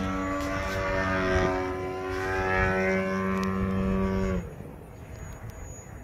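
Radio-controlled model airplane's engine and propeller running at a steady pitch, shifting pitch a little midway, then cutting off abruptly about four seconds in.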